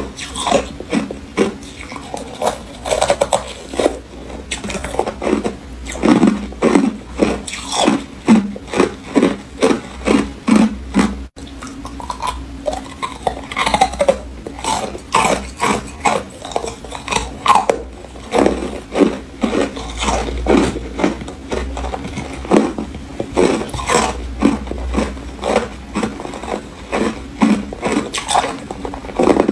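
Close-up crunching and chewing of chunks of freezer frost in the mouth: a steady run of crisp, loud crunches, several each second.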